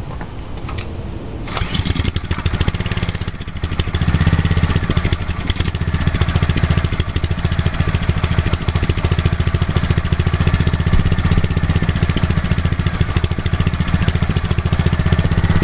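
Ryobi 3100 PSI gas pressure washer's small engine started on choke for its first start: it catches about a second and a half in, dips briefly around three seconds in, then runs steadily at idle, held there by the unit's idle-down feature until the spray trigger is pressed.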